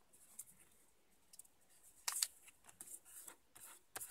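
Sheet of paper being creased by hand: fingers rubbing along a fold, giving a series of short, dry, faint scrapes, the loudest about two seconds in.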